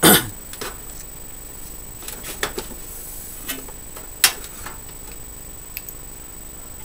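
Scattered clicks and knocks from hands handling cables and connectors against the metal chassis of a desktop computer case. The loudest is right at the start, and another sharp click comes about four seconds in.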